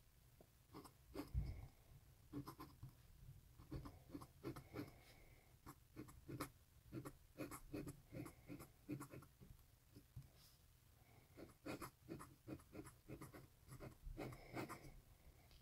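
Metal dip-pen nib scratching across paper in quick, short strokes as letters are written, with a brief pause about ten seconds in.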